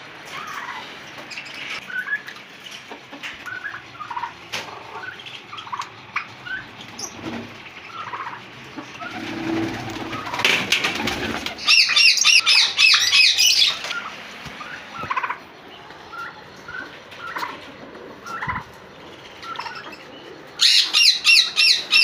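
Cage birds chirping in scattered short calls, with two loud bursts of rapid, high, repeated chirping, one about halfway through lasting a few seconds and another near the end.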